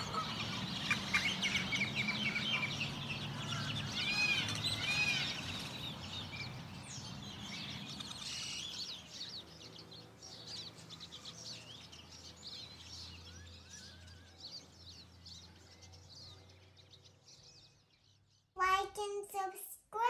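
A mix of bird calls and chirps from waterfowl and songbirds over outdoor background noise, fading out gradually over several seconds. Near the end a small child's voice starts.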